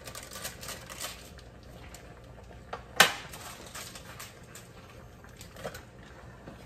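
Crinkling of a paper packet of sinigang sour soup mix being folded, with one sharp clink of a kitchen utensil about three seconds in, the loudest sound, and a fainter clink near the end.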